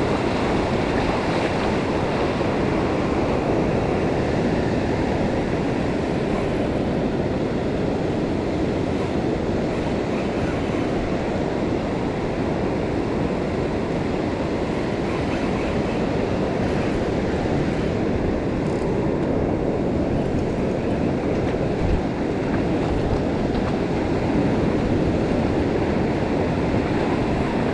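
Steady wind rumbling on the microphone over breaking surf, loud enough to cover the reel's drag.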